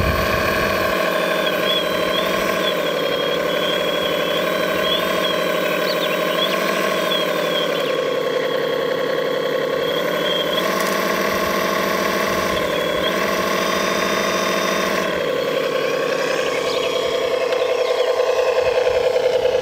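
Electric drive and pump motors of scale RC construction machines whining steadily. The pitch steps down and back up a few times as the machines work.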